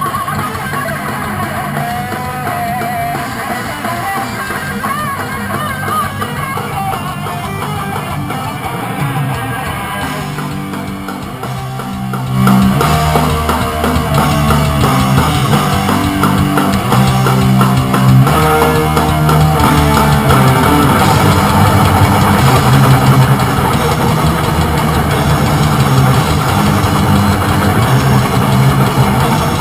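Rock music: electric guitar playing on its own at first, with bending lead notes. About twelve seconds in, the drums and bass come in and the full band plays louder.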